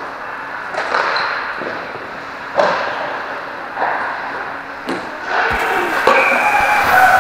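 Ice hockey play in an echoing rink: a series of sharp clacks and bangs from sticks and puck hitting the ice and boards. A steady pitched tone joins about five and a half seconds in.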